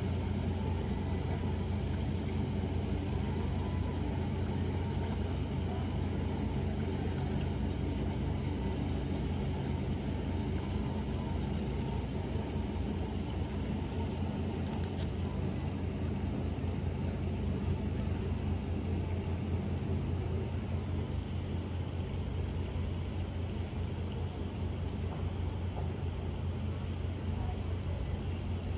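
Steady low mechanical rumble with a hum, even throughout, and one faint click about halfway through.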